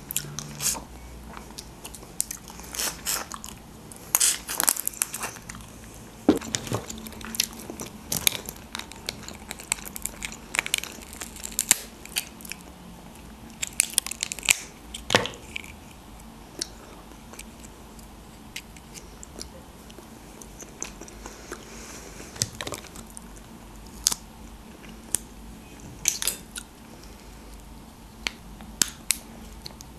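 Cooked lobster shell cracked and pulled apart by hand, with many sharp crackling snaps, along with close-up chewing. The snaps come thick and fast for the first half, then more sparsely.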